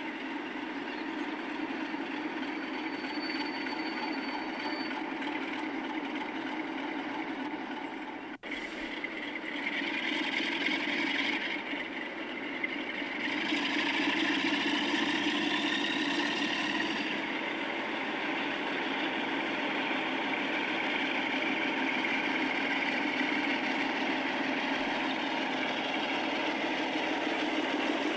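Diesel locomotive engine idling steadily, with a higher whine that rises for a few seconds midway through and a momentary drop-out about eight seconds in.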